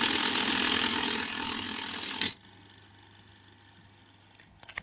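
IBM Model C electric typewriter mechanism running in a dense, continuous mechanical clatter for about two and a half seconds, then stopping suddenly; a couple of faint clicks come near the end.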